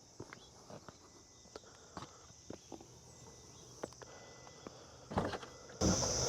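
Faint scattered clicks and knocks, then about five seconds in a starter cranks and the C6 Corvette Z06's 7.0-litre LS7 V8 fires with a sudden loud burst near the end: an aggressive cold start.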